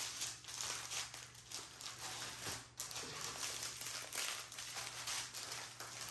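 Small plastic bags of diamond-painting drills crinkling and rustling irregularly as strips of them are handled and spread out on paper.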